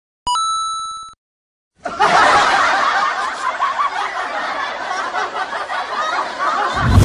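A single bright ding sound effect that rings for under a second, then, from about two seconds in, several voices snickering and laughing together.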